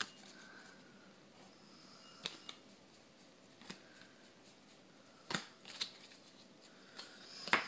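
Trading cards being handled and set down: a few light taps and brief rustles, spaced a second or more apart, with a rustle building near the end.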